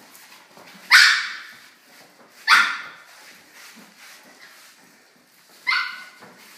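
Yorkshire terrier giving three short, high-pitched barks, about a second in, about two and a half seconds in and near the end.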